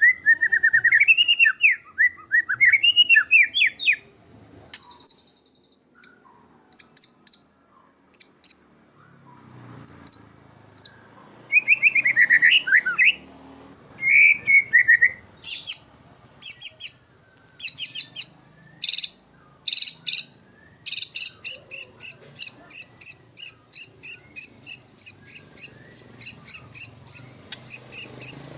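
White-rumped shama singing a varied, loud song: whistled warbling phrases, then short high notes and a run of sharp chips, and from about two-thirds of the way in a fast, even series of notes over a steady high tone, like a cricket's trill.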